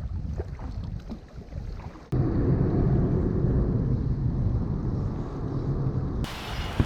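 Wind buffeting an action-camera microphone over water noise from a kayak drifting on a river. The sound jumps suddenly louder about two seconds in and turns hissier near the end.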